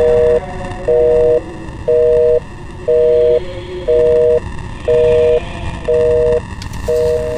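Telephone busy signal: two steady tones sounding together, half a second on and half a second off, about once a second, eight times, over a steady low rumbling noise. The pairing and the cadence are those of the North American busy tone.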